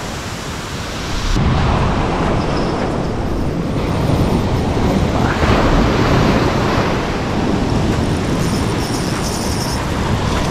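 Sea waves breaking and washing up a coarse-sand beach, a steady rushing noise with a heavy low rumble of wind on the microphone.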